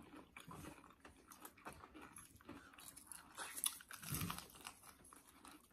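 Faint chewing and crunching of crispy fried food, with scattered small crackles and clicks and a slightly louder bite about four seconds in.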